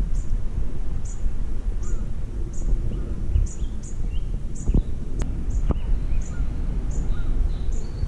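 Wind rumbling on the microphone, with a small bird repeating a short, very high chirp about every three-quarters of a second and other birds calling now and then. A few sharp clicks around the middle.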